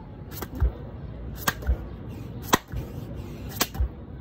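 Four clap push-ups, about one a second: each has a sharp hand clap in mid-air followed by a dull thud as the hands land back on the mat. The third clap is the loudest.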